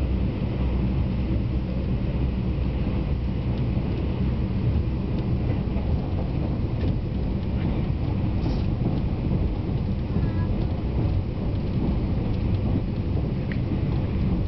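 Passenger train running at speed, heard from inside the carriage: a steady low rumble of wheels on rails and running gear.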